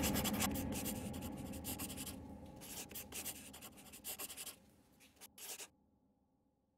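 Handwriting on paper: quick, irregular scratchy strokes that stop for good a little before the end, over the last of the music fading out.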